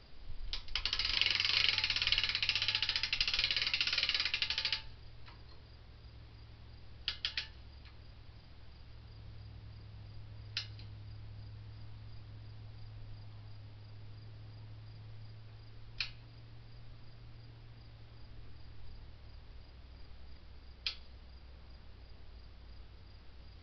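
Black powder cannon fuse hissing steadily for about four seconds, then cutting off suddenly with no shot following. Afterwards a few faint sharp clicks, one a quick triple, over a low steady hum.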